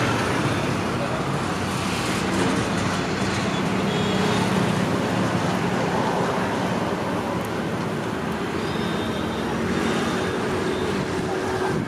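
Steady road traffic noise: a continuous rumble of passing vehicles.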